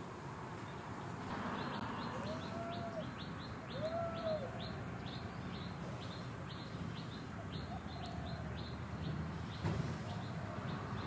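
Bird chirping outdoors in a long, even series of short high chirps, about three a second. Two brief arched calls, lower in pitch, come a couple of seconds in over steady background noise.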